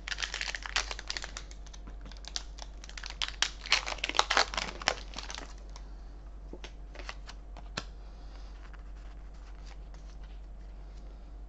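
Foil booster-pack wrapper being torn open and crinkled, in two spells of dense crackling over the first five seconds or so. A few light, separate ticks follow before it goes quiet.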